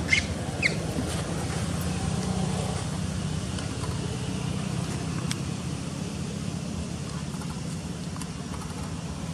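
Steady low rumble, like a distant motor, with two short high squeaks from a young macaque in the first second.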